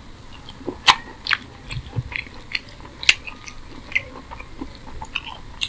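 Close-up eating sounds of a man eating chicken curry and rice by hand: chewing with scattered wet mouth clicks and smacks, two of them louder, about a second in and about three seconds in.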